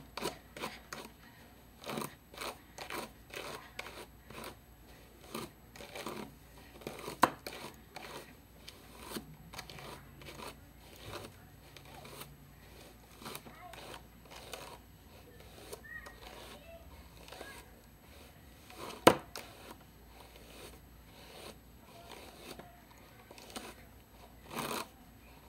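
Dry curly hair (Nadula hair extensions) being pulled apart and detangled by hand, giving irregular rustling and crinkling strokes close to the microphone. Two sharp clicks stand out, one about seven seconds in and a louder one a little past two-thirds through.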